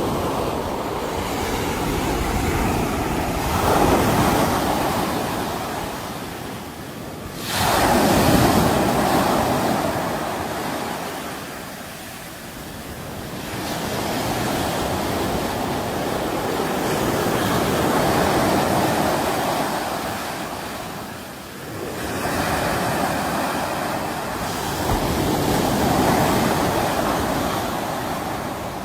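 Sea waves breaking in repeated surges that swell and fall every few seconds, one breaking sharply about seven and a half seconds in.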